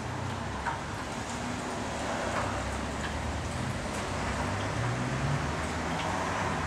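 Steady low rumble and hiss in the background, with a few faint clicks.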